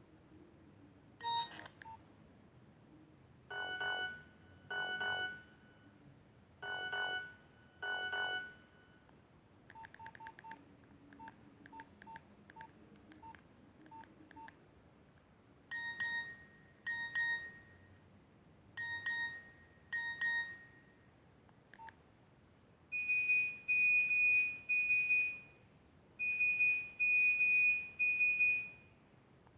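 Nokia 1110i phone playing its built-in monophonic ringtones and alert tones one after another: short electronic beep patterns with pauses between them, from a single beep and four buzzy blips to a quick run of ticks, paired beeps, and two groups of rapid high beeps near the end.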